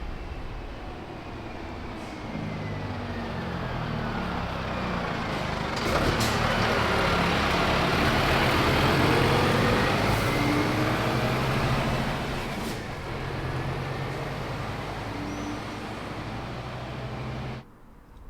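A heavy road vehicle's engine running as it drives past, growing louder to a peak in the middle and then easing off. It cuts off suddenly near the end.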